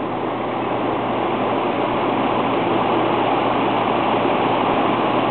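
Vintage Signal EP-20 window exhaust fan with a direct-drive motor running on high speed: a steady rush of air over a low motor hum. It grows louder over the first few seconds as the blades come up to speed, then holds steady.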